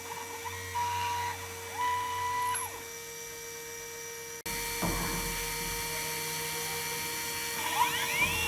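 CNC router starting its job: the stepper motors whine in short moves, each rising in pitch, holding and falling away, over the steady hum of the running spindle. Near the end another whine rises and holds higher.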